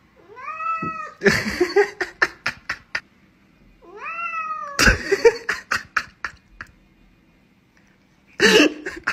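Domestic cat meowing twice, each meow rising then falling in pitch. Each meow is followed by a quick run of sharp clicking pulses, and another burst of clicks comes near the end.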